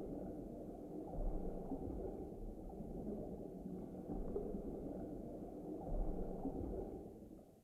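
Low, muffled rumble of water, like underwater ambience, fading out near the end.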